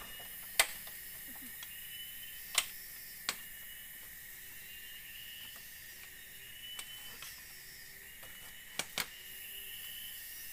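Sharp knocks of bamboo being handled and fitted into a bamboo-slat wall: one about half a second in, two a few seconds later and a quick pair near the end. Behind them runs a steady high drone of forest insects, with a short rising call repeating about once a second.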